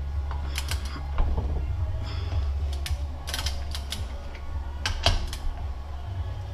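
Hand ratchet wrench clicking in short, irregular runs as bolts are turned, over a steady low hum.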